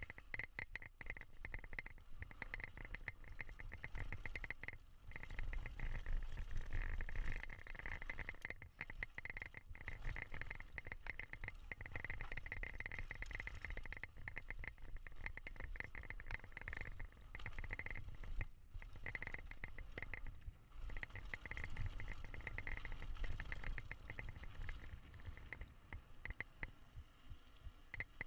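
GT Force X Expert mountain bike rolling fast down a dirt singletrack: tyre rumble and chassis rattle over the rough trail, with a fast, continuous ticking from the rear hub freewheeling as it coasts.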